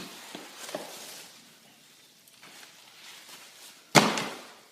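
Foam underlayment pad rustling and scraping as it is handled and trimmed against the wall, with small clicks. About four seconds in, one loud sharp knock.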